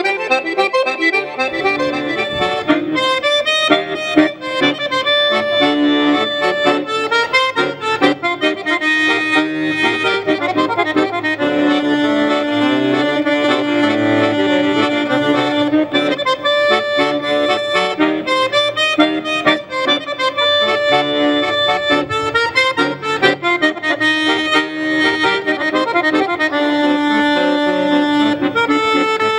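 Button accordion played solo: a fast tune of quickly changing notes, with held notes for a few seconds about halfway through.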